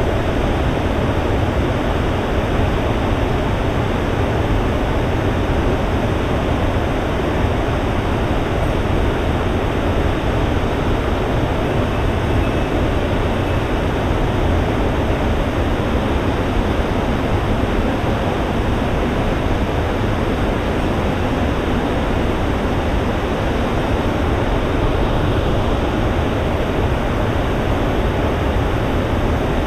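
Rushing water of a headwater mountain stream: a steady, unbroken roar of water over rocks.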